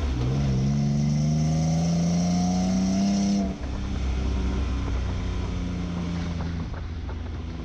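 Exhaust note of a 2022 Toyota Tacoma's V6 through an MBRP 3-inch catback exhaust, a little bit loud. The revs climb steadily for about three and a half seconds, then drop suddenly and hold lower, easing off near the end.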